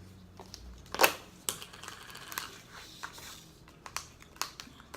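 Slime being handled and pressed together by hand, giving off irregular sticky clicks and pops, the loudest about a second in.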